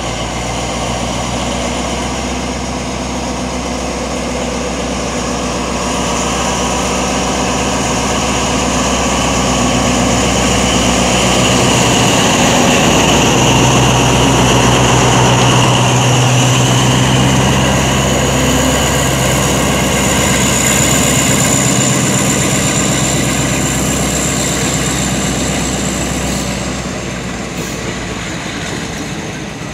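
Alsthom diesel-electric locomotive running as it passes close by on the adjacent track, its engine and a high whine growing louder to a peak midway as the cab goes past, then fading.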